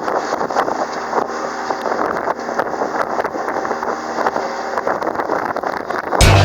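Strong wind buffeting the microphone aboard a sailboat under way, a steady rushing noise with small knocks. Loud music cuts in near the end.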